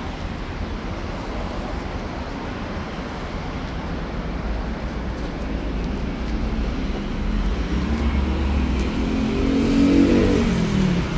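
Steady city traffic rumble. Near the end a car's engine revs up and passes close by: its note rises, is loudest about ten seconds in, then drops away.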